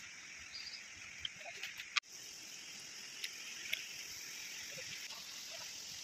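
Quiet forest ambience: a steady high hiss with a few faint short clicks and chirps scattered through it.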